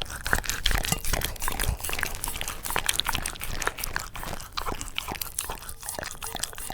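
Shiba Inu eating, chewing and crunching its food with many quick, irregular clicks.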